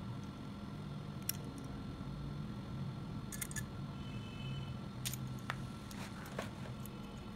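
Scattered small metallic clicks and clinks from a gear puller being worked on the steel shaft of a BLDC fan motor's rotor to pull a ball bearing off. There is a quick cluster of clicks partway through, over a steady low hum.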